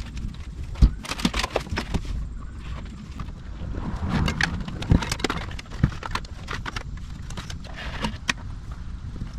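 Hands working with electrical wire and its spool inside a stripped car: scattered clicks, knocks and scrapes, with a few heavier thumps.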